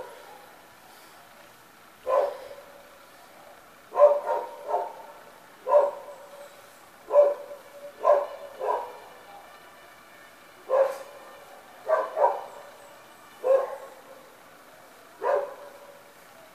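A dog barking repeatedly in short, sharp barks, some single and some in quick pairs or threes, every second or two.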